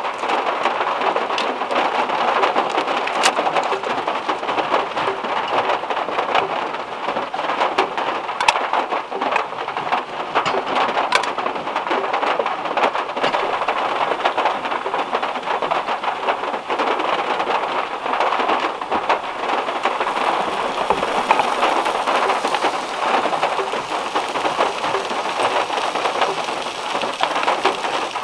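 Heavy rain drumming on a Volkswagen Beetle's metal roof, heard from inside the car: a dense, steady patter with individual drops ticking sharply through it.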